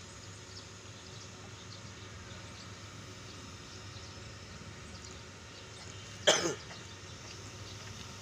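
Quiet open-air ambience with one short, loud cough close to the microphone about six seconds in.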